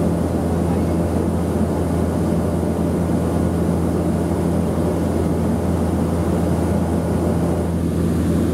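Cabin drone of a Cessna 208B Grand Caravan in flight: its single PT6A turboprop engine and propeller run steadily as a constant low hum under rushing air noise, heard from inside the passenger cabin.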